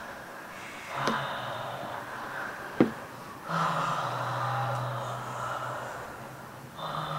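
People breathing deeply and audibly in long, noisy breaths, the longest starting about halfway through and lasting some three seconds, with a low steady tone under it. A single sharp click comes just before that breath.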